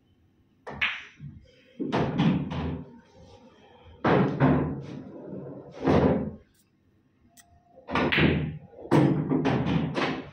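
Pool shots: a cue tip striking the cue ball, then balls knocking against each other, the cushions and the pockets. This happens several times, each a sharp knock that dies away within about a second.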